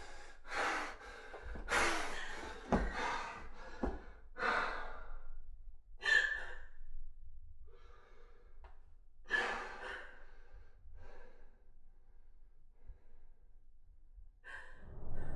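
A person breathing hard: a quick run of loud, breathy breaths over the first few seconds, then slower sighs and gasps that grow fainter.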